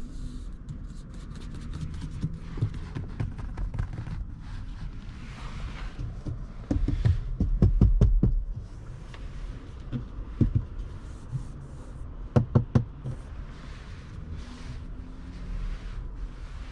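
Scattered knocks and clicks over a low rumble, with a louder run of thumps about seven seconds in and three quick clicks near the end.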